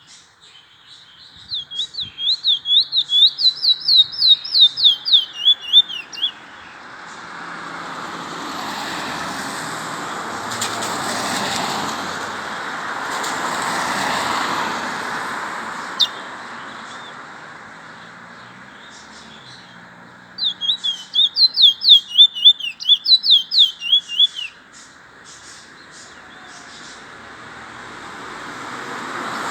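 Trinidad bullfinch (chestnut-bellied seed finch) singing two bouts of rapid, high whistled notes sweeping up and down, about four notes a second, each bout lasting about five seconds. Between the bouts, road traffic swells and fades, loudest in the middle.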